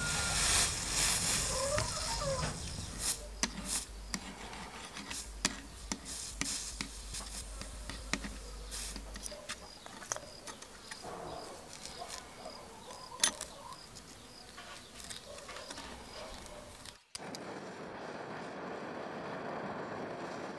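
Scattered light clicks and taps of metal on metal and wood while a copper spoon blank is soldered, with one sharp knock a little past the middle. After a cut about 17 s in, a gas torch hisses steadily as it heats the copper blank.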